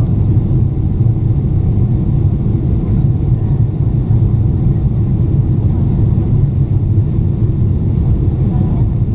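Steady low rumble of cabin noise inside a Boeing 777-300ER in flight: engine and airflow noise heard from an economy seat, unchanging throughout.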